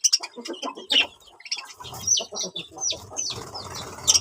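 Several birds calling: many short, high chirps that fall in pitch, thickest from about two seconds in, over lower, coarser calls.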